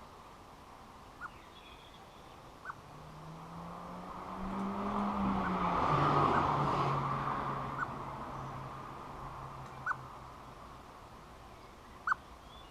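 A vehicle passes, swelling to a peak about halfway through and fading again, its low hum dropping in pitch as it goes by. A bird gives short, sharp single calls every two seconds or so.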